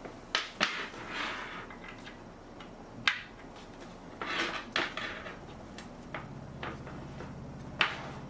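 Hard objects being handled and set down: a few sharp, irregular clicks and knocks, the loudest about three seconds in and near the end, with some rustling of packaging between them.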